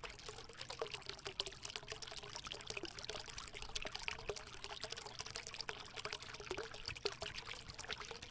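Small urn fountain trickling, water spilling from the urn into the basin below in a steady patter of small splashes and drips.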